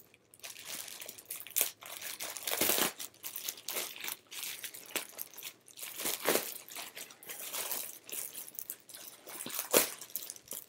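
Plastic poly mailer bag crinkling and rustling as hands grip and pull at it to get it open, with louder, sharper crackles a few times.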